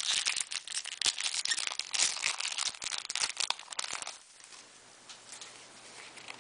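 A foil Yu-Gi-Oh! booster pack being torn open and crinkled by hand: a dense crackle of foil that stops about four seconds in. Faint handling of the cards follows.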